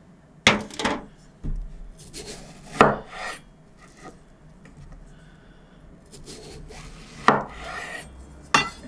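Seeds being scraped out of a halved papaya melon: a run of short rasping scrapes and knocks, scattered a second or more apart, the sharpest about half a second in, near three seconds, and twice near the end.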